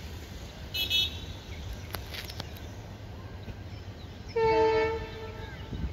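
Locomotive horn sounding once for about a second, about four and a half seconds in, a steady pitched blast that is the loudest thing heard. A brief shrill high-pitched note sounds about a second in, over a steady low background rumble.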